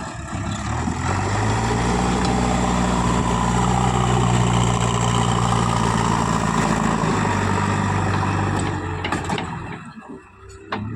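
JCB 3DX backhoe loader's diesel engine revving up under load. It holds high revs for several seconds, then drops back near the end.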